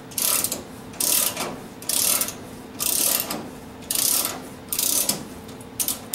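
Ratcheting tubing cutter being worked around a copper pipe, its ratchet clicking in a stroke about once a second as the cutter wheels bite into the tube.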